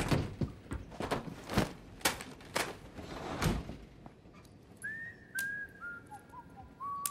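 A string of soft thumps and swishes, roughly every half second, for the first few seconds. Then a person whistles a short tune of notes that step down in pitch, each note scooped up at its start.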